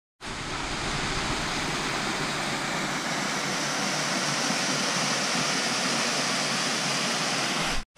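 Small waterfall splashing down a rock ledge into a pool: a steady rushing of water.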